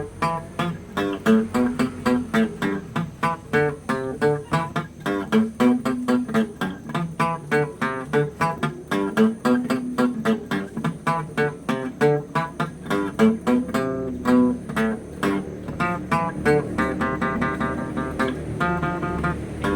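Guitar solo: a fast run of picked single notes, moving into longer held notes near the end.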